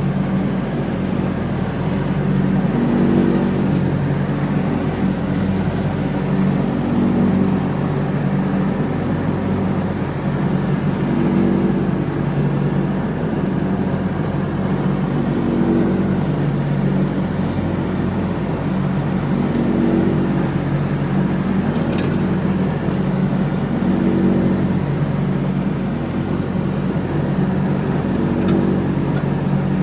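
John Deere X304 lawn tractor running steadily while mowing, its engine note swelling and easing every few seconds.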